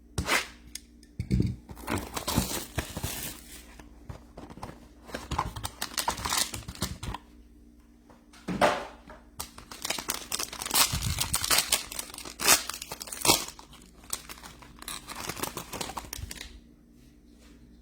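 Plastic wrapping being torn and crinkled as a sealed trading card box and pack are ripped open and handled, in irregular rustling bursts that die down near the end.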